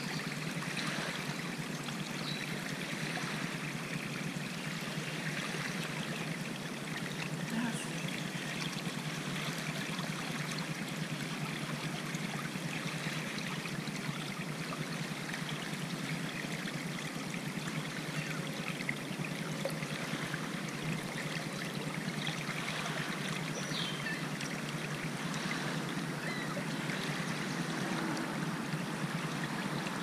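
Water trickling steadily down a shallow channel dug through sand. This is a small drainage ditch running freely again after being cleared of the sand that had plugged it.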